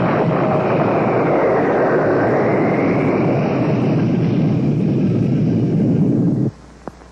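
Rushing whoosh sound effect for a puppet character's flight through a window, a jet-like rush of noise that cuts off suddenly about six and a half seconds in.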